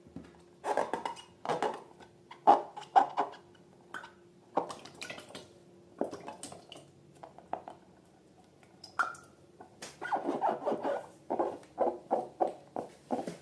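Slime being squeezed and worked by hand: irregular short, wet squelches and pops, sparse for a while, then a dense run of them near the end.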